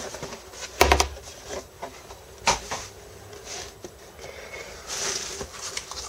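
Cardboard board-game box lid being lifted off and handled: a dull knock about a second in, a sharper click a couple of seconds later and a few light taps, then a soft rustle of paper near the end as the rulebook is picked up.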